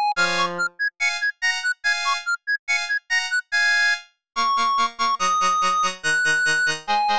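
Polyphonic ringtone from a Samsung Anycall SPH-X4200 phone, an MMF file played back through Yamaha's MidRadio synthesizer player. A melody of short, bright synthesized notes stops briefly about four seconds in, then a fuller section comes in with a pulsing bass line.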